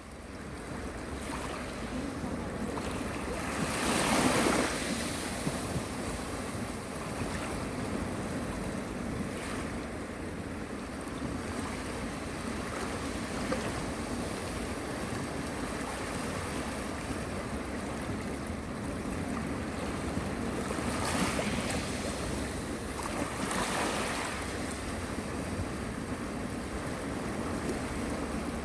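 Calm sea waves washing onto the shore. One wave breaks more loudly about four seconds in, and two more swell up near the end.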